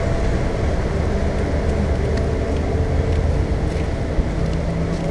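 A motor vehicle engine running steadily: a low rumble with a faint even hum above it.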